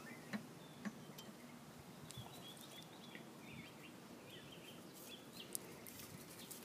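Faint outdoor quiet with birds chirping, plus a few small sharp clicks.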